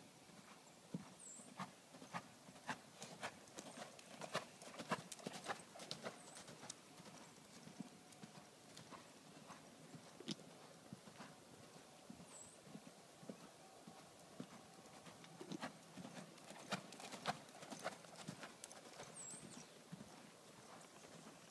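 Faint hoofbeats of a draft cross mare cantering on arena sand: irregular soft knocks that come and go in clusters as she moves around the ring.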